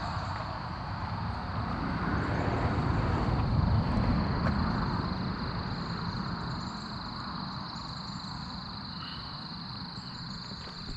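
A road vehicle passes by, its engine and tyre noise swelling to a peak about four seconds in and then slowly fading, over a steady high-pitched drone.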